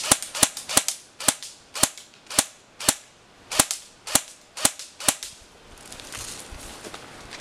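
Airsoft gun firing single shots, each a sharp crack, about two a second, a dozen in all, stopping about five seconds in. After that, rustling of footsteps through ferns and undergrowth.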